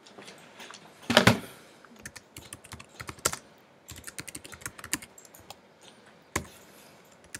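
Typing on a computer keyboard: quick runs of key clicks, with a louder knock about a second in.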